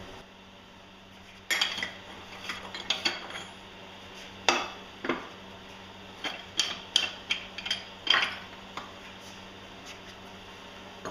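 Metal clinking and clanking as a steel special tool is worked off the propeller shafts of a Mercruiser Bravo 3 sterndrive lower unit and handled: a run of sharp, uneven knocks starting about a second and a half in and ending near the end.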